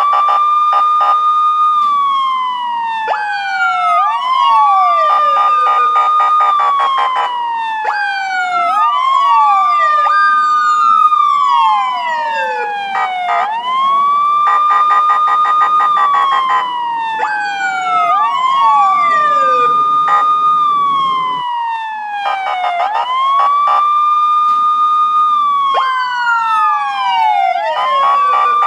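Police siren wailing. The pitch sweeps up quickly, holds high, then slides slowly down, repeating about every four and a half seconds, with a second wail overlapping out of step.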